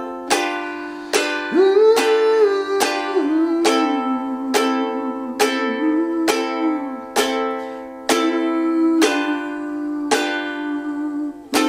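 Ukulele strummed through the ending chord progression F, G7, Am, Am G7, roughly one chord a second, each ringing out. A wordless voice line glides along over the first half.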